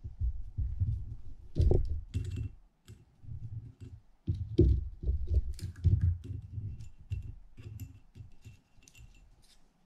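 Irregular light clicks and taps of small metal parts on a Penn International II 50T reel's side plate as the dogs are set in place and worked with a small screwdriver, among dull knocks and rubbing from hands handling the plate on the bench.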